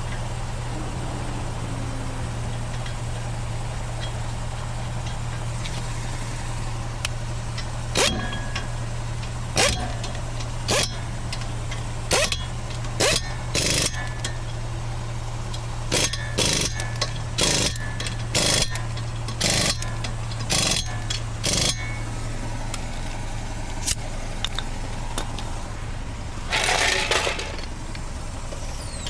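Air impact wrench running the lug nuts onto a spare wheel in about a dozen short bursts, then one longer burst near the end, over a steady low engine hum.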